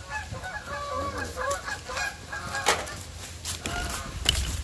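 Geese honking, many short calls one after another, with two sharp knocks about two thirds of the way in and near the end.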